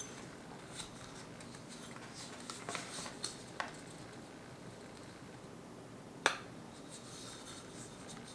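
Faint handling sounds of a stand dock's parts being worked by hand: light rubbing and scattered small clicks, with one sharper click about six seconds in.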